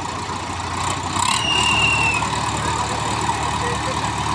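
Two diesel tractor engines, a Sonalika DI 55 and a Swaraj 744, running while hitched together for a tug-of-war. The engine noise gets louder about a second in, and a short high-pitched squeal comes at the same time.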